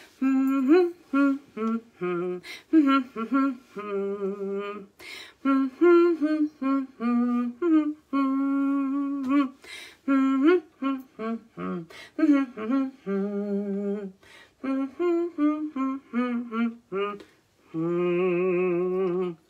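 A woman humming a tune with no words: a melody of short notes with brief gaps, ending on a long held note with a slight waver near the end.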